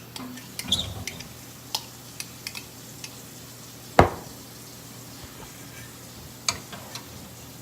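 A kitchen utensil clinking, scraping and knocking against cookware while shredded cheese is scraped into a pot and stirred. There are scattered light clinks, one loud sharp knock about four seconds in, and a few more clinks later.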